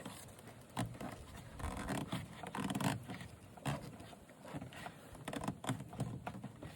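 Irregular scraping, rubbing and light clicking of parts being handled and hooked back on.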